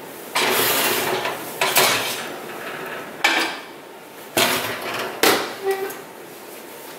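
Baking dish being taken out of an oven: a metal oven rack scraping for about a second, then four sharp knocks and clatter of the ceramic dish and rack, the last two with a short metallic ring as the oven door is shut.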